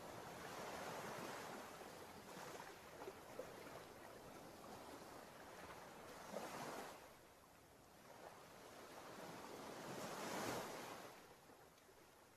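Faint ocean surf: waves breaking and washing up a sandy beach. The rush swells and falls away three times, the last surge about ten seconds in.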